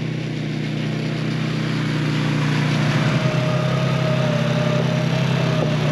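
A steady, loud, engine-like mechanical hum with a thin high tone joining it about halfway through; it cuts off abruptly at the end.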